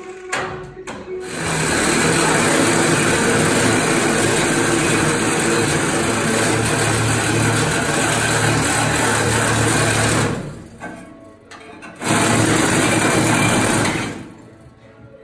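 Reciprocating saw cutting through the sheet-metal rear shelf of a Nissan 350Z, running steadily for about nine seconds, stopping, then cutting again for about two seconds near the end.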